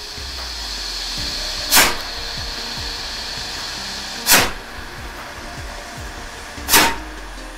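Pyrotechnic delay fuses burning in sequence: a steady hiss with three short, sharp spits about two and a half seconds apart, as each delay element flashes through and lights the next. This is the delay that lets the shells in a rack fire two or three at a time instead of all at once.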